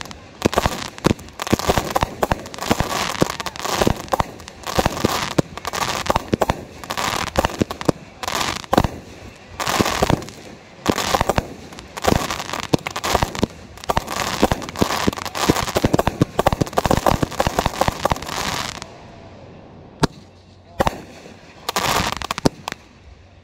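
Aerial fireworks launching and bursting in a rapid, dense barrage of bangs for about nineteen seconds. A lull follows, with a few scattered bangs near the end.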